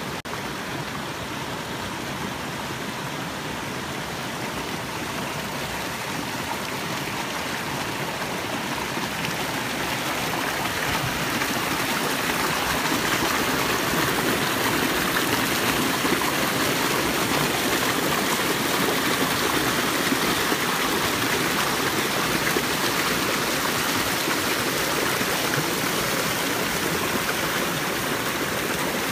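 Creek water rushing and splashing over rocks in small cascades, a steady rush that grows louder about ten seconds in.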